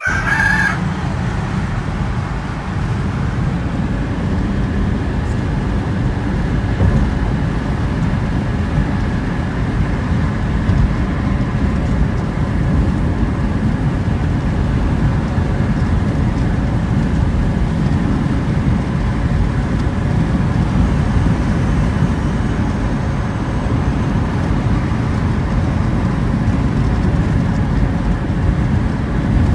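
Steady road noise inside a moving car's cabin at highway speed: a low, even rumble of tyres and engine.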